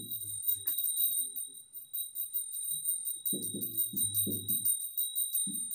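Background music with a steady, high jingling beat, and a low voice murmuring briefly about halfway through.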